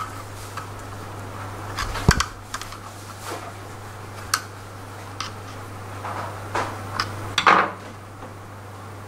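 Scattered metal clicks and knocks as the driven pulley and clutch assembly of a SYM CruiSym 300 scooter's CVT is handled and seated with the drive belt. There is one sharp knock about two seconds in and a short clatter about seven and a half seconds in.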